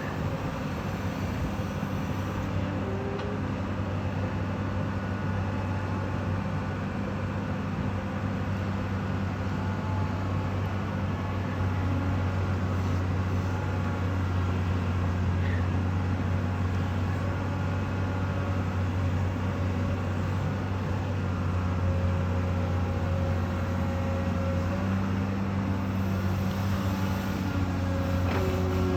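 Komatsu PC200LC Avance crawler excavator's diesel engine running steadily with a low drone, while faint higher whining tones come and go over it.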